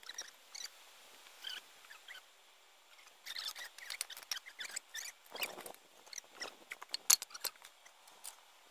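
Scattered light clicks, taps and scratchy scrapes from hand work on a heavy concrete slab as it is being raised, coming in irregular clusters, with one sharper click about seven seconds in.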